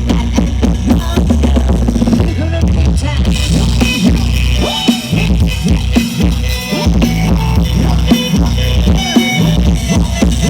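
Loud music with heavy, pounding bass and a steady beat, played through a Thai rot hae parade sound-system truck.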